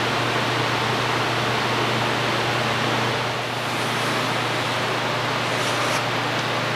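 Steady low machine hum with an even hiss over it, as of a motor or fan running continuously.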